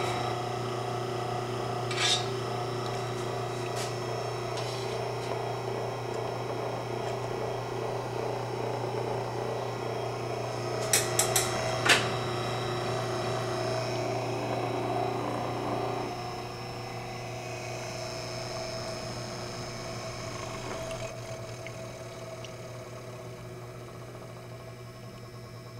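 Laboratory overhead mixer's electric motor running steadily, its shaft and impeller stirring liquid in a stainless steel pot, with a constant hum and whine. A sharp click comes about two seconds in and a quick run of four clicks about halfway. About two-thirds through, the sound drops in level and its tone shifts, then fades slowly.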